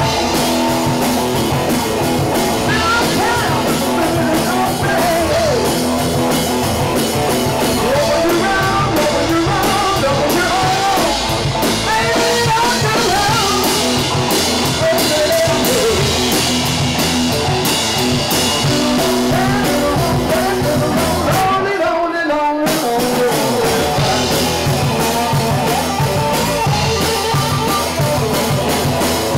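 Live rock band playing electric guitar, bass guitar and drum kit, with a man singing into a microphone. The instruments cut out for about a second late on, then come back in.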